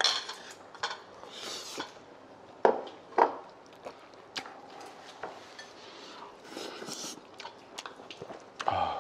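Spoons and chopsticks clinking and scraping against ceramic and stone bowls while people eat, with two louder clacks about three seconds in.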